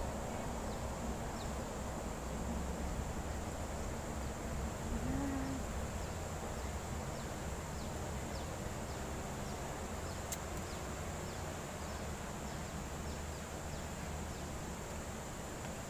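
Steady high-pitched drone of insects in garden vegetation, with faint short ticks repeating about twice a second, over a low steady rumble.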